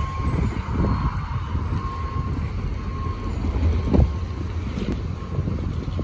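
Wind buffeting the microphone over the rumble of passing road traffic, with a thin high beep repeating about once a second, and a single bump about four seconds in.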